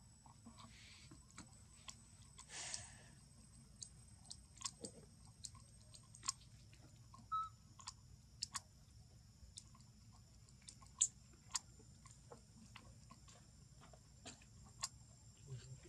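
Faint scattered sharp clicks and crackles at an irregular pace, over a steady high-pitched insect buzz. There is a brief rustle about two and a half seconds in, and the sharpest click about eleven seconds in.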